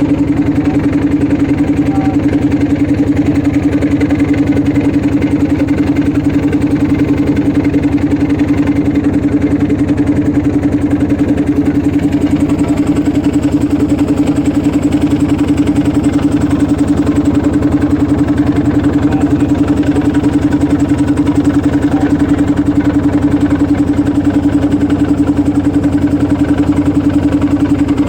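Motorboat engine running steadily at constant speed, an even drone with a fast regular chug.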